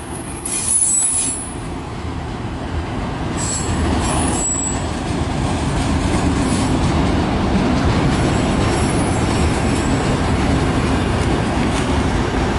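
Freight cars of a long CN manifest train, many of them autorack car haulers, rolling past close by with a steady rumble and rattle of wheels on rail. Brief high wheel squeals come about half a second in and again around four seconds in.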